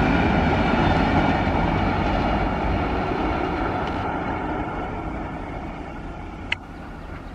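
A lone Indian Railways diesel locomotive running light. Its engine runs and its wheels roll on the rails, fading steadily as it moves away. There is one short, sharp click about six and a half seconds in.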